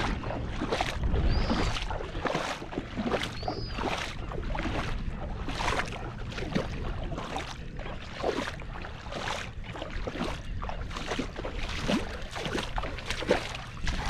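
Footsteps wading through shallow water over a boggy, muddy bottom, splashing with each step at about two steps a second, with wind rumbling on the microphone.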